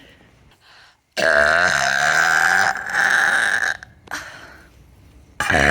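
A person's long, loud deliberate burp lasting about two and a half seconds, its pitch wavering, with the start of another burp near the end.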